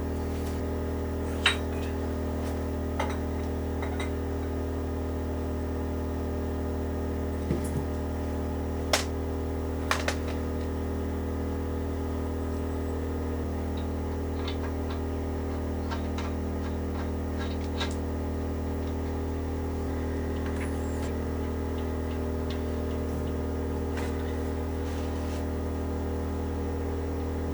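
Portable petrol generator running at a steady hum, with a few light metallic clicks and taps of small parts being handled, most of them in the first ten seconds.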